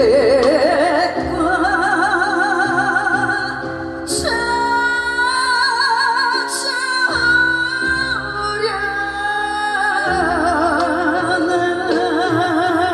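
Live trot song: a woman's voice holding long notes with a wide vibrato over a backing band track, changing note a few times.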